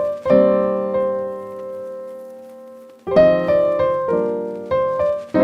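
Background piano music: a chord rings out and slowly fades, then a run of single notes and chords picks up again about three seconds in.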